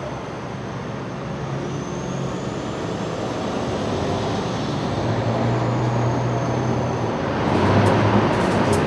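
Diesel engine of a large mining haul dump truck running with a steady hum and a faint high whine, growing louder toward the end as the truck moves up close.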